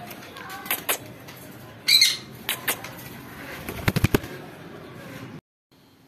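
Small pet parrots (conures): a short, loud squawk about two seconds in, scattered clicks, and a quick run of wing flaps about four seconds in.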